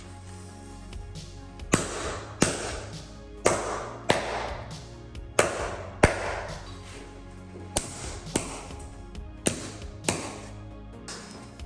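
Hammer blows driving the nails of wooden carpet tack strip into a concrete floor: sharp strikes, often two about half a second apart, every couple of seconds. Background music plays under them.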